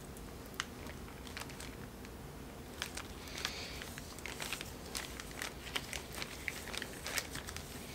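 Faint handling noise of a grease tube being worked into a ring roller's metal mechanism: scattered small clicks and crinkles, more frequent in the second half.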